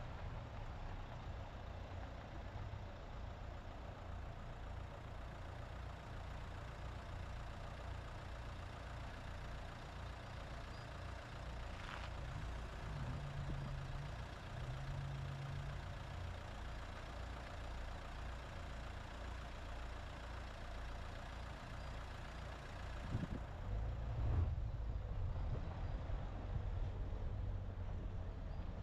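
Dacia Duster on the move: a steady low engine and road rumble, with two short low hums about halfway through and a rougher, louder stretch near the end.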